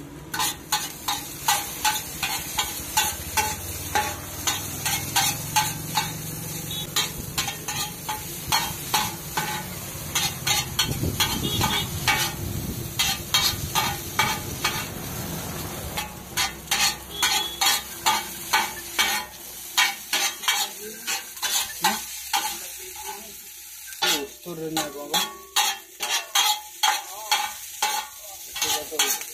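Two flat metal spatulas clattering and scraping against a large flat griddle in quick runs of strikes, with short pauses, as chowmein noodles and egg are stir-fried over a steady sizzle.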